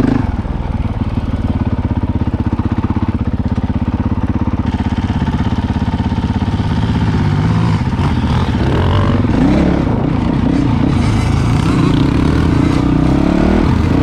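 Honda CRF450L's single-cylinder four-stroke engine running at low revs with a steady chugging beat, then revving up and down repeatedly through the second half.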